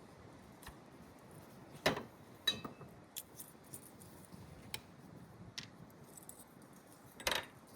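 Scattered light clicks and knocks of metal tools and parts being handled, a few louder ones about two seconds in and again near the end.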